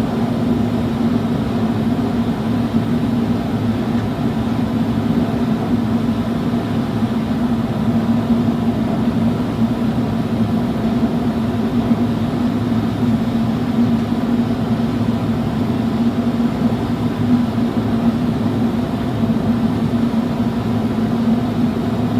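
Flameworking torch burning steadily, a constant rushing noise with a low hum, while glass is heated into a gather at the end of a solid rod.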